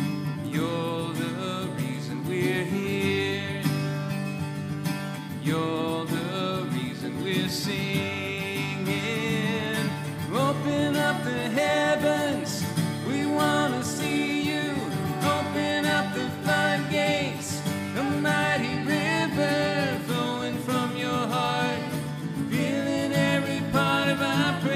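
Acoustic guitars strumming and picking the chords of a slow worship song, with a melody line over them.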